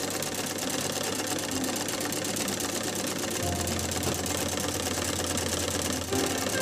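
Sewing machine running at speed, stitching with a rapid, even ticking, over a low hum that grows louder about halfway through.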